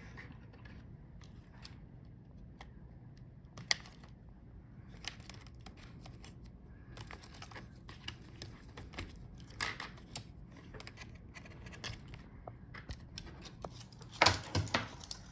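Small clicks and light scraping from hands working inside an open laptop: fan cable connectors being unplugged and the copper heatsink-and-fan assembly being worked loose and lifted off the motherboard. One sharp click comes about four seconds in, and a few louder clicks come near the end.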